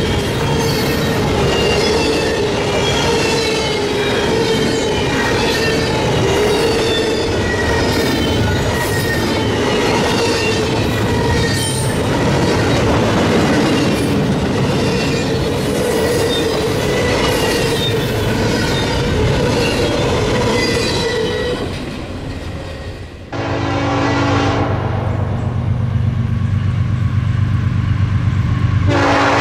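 Freight train cars rolling past with rail clatter and a steady, wavering wheel squeal. After an abrupt change about 23 seconds in, a locomotive horn sounds as one long, steady chord.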